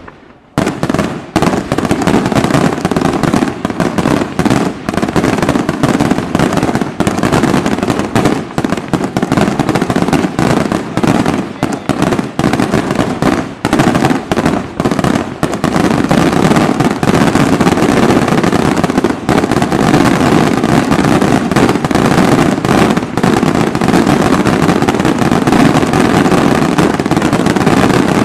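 Aerial fireworks shells bursting in a dense, unbroken barrage of bangs and crackle, which starts after a brief lull in the first half-second.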